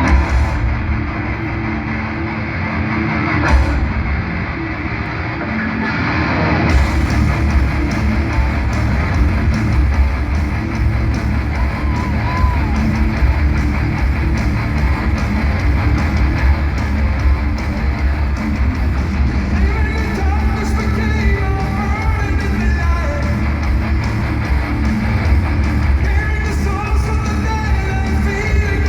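Heavy metal band playing live, with distorted electric guitars and drums. The full band kicks in about seven seconds in, and a singing voice joins in the last third.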